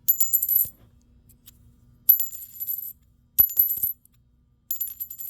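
A quarter dropped four times onto a hard surface, each landing a short clatter of bounces followed by a bright, high two-note ring. The ring is being listened to for telling a silver quarter from a clad one by ear.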